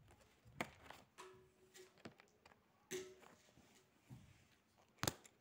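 Quiet handling of a spiral-bound paper workbook: pages and cover moved by hand, with a few sharp taps and clicks, the loudest just before the end.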